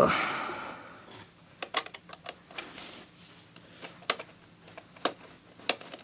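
A knock as the iMac's aluminium RAM access door is pressed home, then irregular light clicks and taps of metal as the door and a screwdriver are handled to screw it shut.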